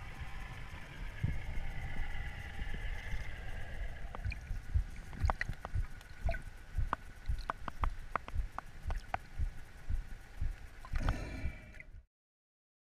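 Underwater sound picked up through a diver's action-camera housing: low water rumble with repeated thumps, a faint steady whine, and a run of sharp clicks in the middle. It cuts off suddenly near the end.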